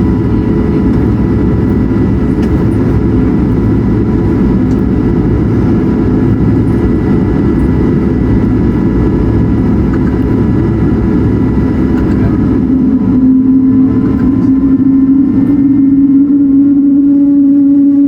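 Airbus A220's Pratt & Whitney PW1500G geared turbofans heard from the cabin while taxiing: a steady, loud rumble with faint high tones. About two-thirds of the way through the rumble thins and a steady engine hum comes forward, beginning to climb in pitch near the end.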